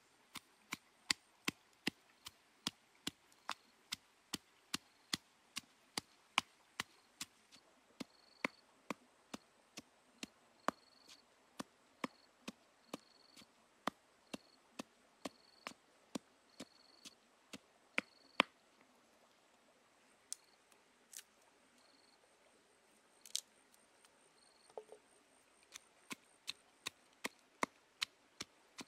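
Wooden pestle pounding red chillies and garlic in a mortar, about two sharp knocks a second. The pounding pauses briefly a little past the middle, then resumes, sparser and uneven at first and steadier near the end.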